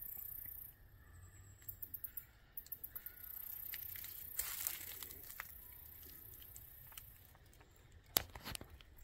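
Footsteps crunching on leaf litter and twigs, a few sharper crunches standing out, over a high steady hiss that drops away near the start and comes back about three seconds in, with a short run of rapid ticking.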